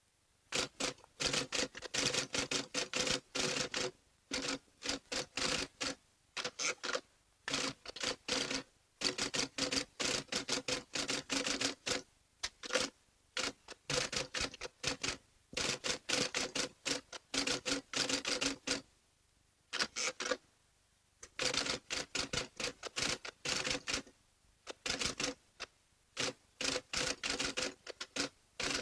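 Typewriter keystrokes in quick runs of clicks, broken by short pauses, each run matching a line of credit text being typed out.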